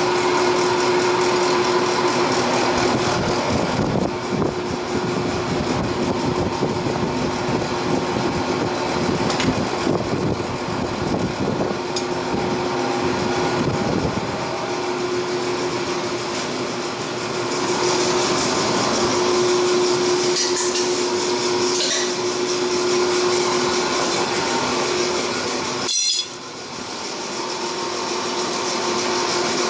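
A machine running steadily, with a constant hum over a loud hiss and a few light knocks; the sound drops off abruptly near the end.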